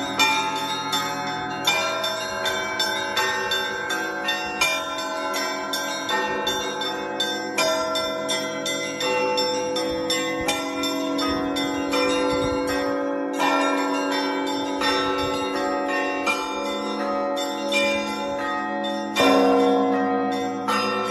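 Orthodox church bells rung together: several bells of different pitches struck in a fast, steady, repeating pattern, their tones ringing on over each other, with a louder stroke about nineteen seconds in.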